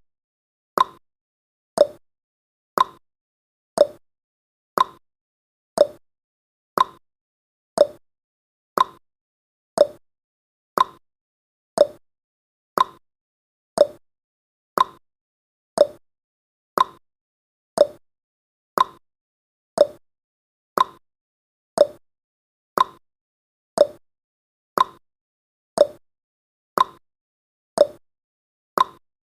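Clock-style tick-tock sound effect of a countdown timer: short sharp ticks, one a second, alternating between a higher and a lower pitch.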